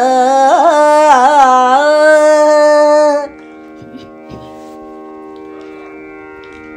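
A woman singing a harikatha refrain in Carnatic style, holding one long, ornamented note that stops about three seconds in. A quieter steady instrumental drone carries on underneath and is left on its own after the voice stops.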